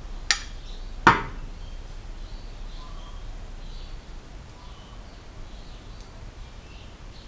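Two sharp metallic clinks about a second apart, the second louder with a brief ring, as metal engine parts are handled while fitting piston rings.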